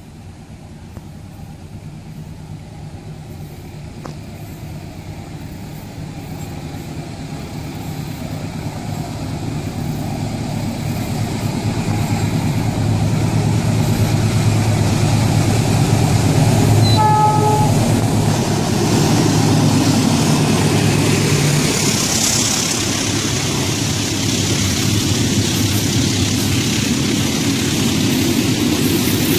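Diesel locomotive hauling a train of fuel tank wagons approaches and passes, its engine drone growing steadily louder. A brief horn toot sounds a little past the middle. After that the drone gives way to the rolling rumble of the tank wagons going by.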